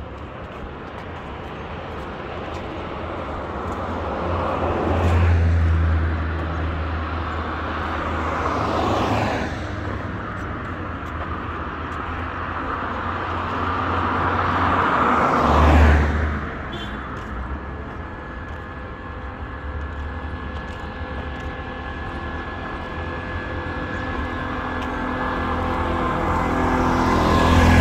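Road traffic passing on a wet road: cars go by one after another, each a swell of tyre and engine noise that rises and fades, the loudest about five, nine and sixteen seconds in. In the second half a three-wheeled auto-rickshaw's small engine hums steadily, growing louder as it comes close near the end.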